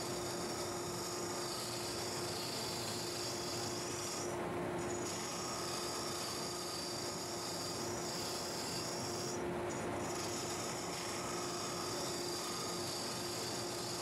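Wood lathe hollowing a spinning Osage orange blank with a Sorby multi-tip hollowing tool's high-speed steel cutter: a steady scraping hiss over a constant hum. The cutting sound drops out briefly twice, about four and nine seconds in, as the tool comes off the wood.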